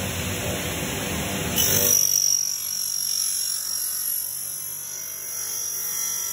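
Oberg table saw with a 400 mm blade making a test cut as the blade rises under power: a heavy cutting noise for about the first two seconds, then a steady high-pitched whine as the blade spins on.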